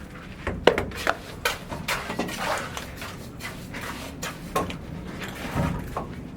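Irregular knocks and clatter of hard objects, several sharp taps with scraping between them, the loudest knock about a second in.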